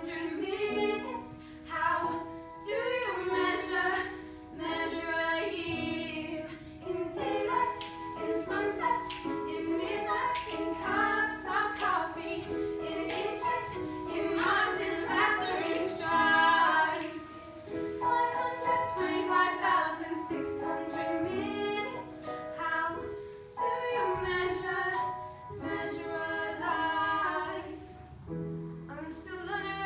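A group of voices singing a song together, choir-style, with held notes under the moving melody.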